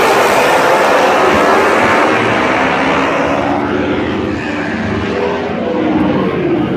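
Pack of racing motorcycles accelerating hard off the start line at high revs. The engine noise is loud and eases slightly as the bikes pull away down the straight.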